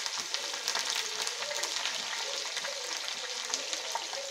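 Green chillies and curry leaves deep-frying in hot oil in a steel frying ladle dipped into a kadai: a steady, dense sizzle with fine crackling.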